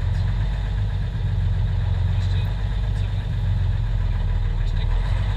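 Praga V3S truck's air-cooled six-cylinder diesel engine idling steadily, heard from inside the cab with a deep, even low hum.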